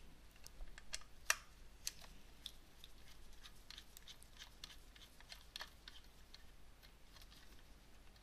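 Faint, irregular small clicks and ticks of a precision T6 Torx screwdriver backing out a tiny screw from a graphics card's power connector, with a couple of slightly louder clicks in the first two seconds.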